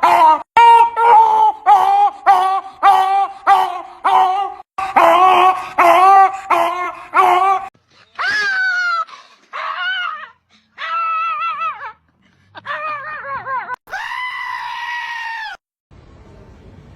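Animal screaming calls: a rapid string of short screams, about two a second, for the first seven or so seconds, then a few separate longer calls that bend up and down in pitch, the last one held for about a second and a half before cutting off sharply.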